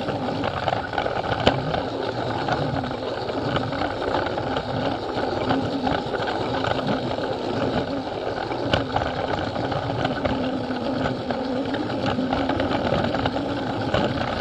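Battery-powered Plarail toy train's small electric motor and gearbox whirring steadily as it runs along plastic track, with an occasional click.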